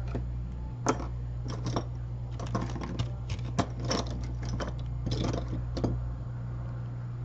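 A string of small, sharp clicks and taps from hand work on a phone on a repair bench, irregular and sometimes in quick clusters. A steady low electrical hum runs underneath.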